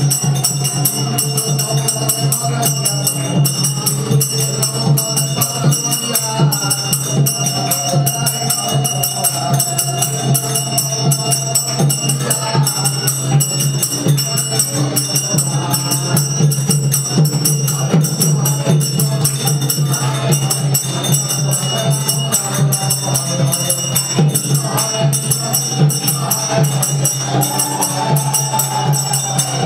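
Devotional group singing over fast, steady jingling hand percussion, with bright metallic ringing running throughout.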